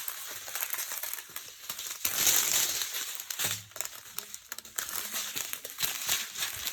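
Small plastic bags of diamond painting drills crinkling as they are handled and sorted, loudest about two seconds in.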